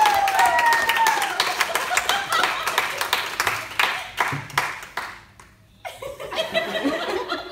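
A small group clapping and cheering. A gliding vocal whoop is heard at the start. The clapping dies away about five seconds in, followed by chatter and laughter.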